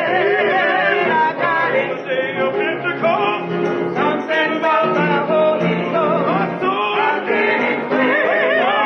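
Gospel singing with instrumental accompaniment, the voices holding long, wavering notes.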